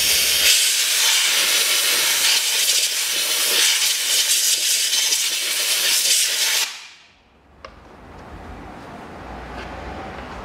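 Compressed-air blow gun hissing loudly for about seven seconds, blowing dust out of a car's air filter housing, then tapering off; a single click follows.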